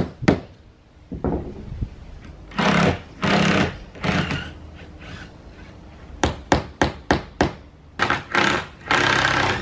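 A hammer knocking a couple of times at the camper's corner trim, then a cordless drill run in several short bursts to back out the corner molding's screws. A quick run of sharp knocks, about three a second, comes between the bursts.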